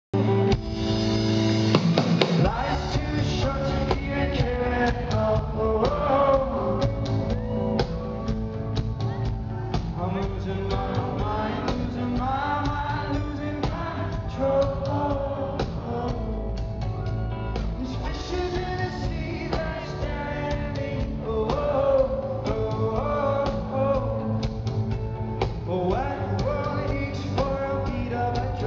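A live rock band playing a song, the music running without a break.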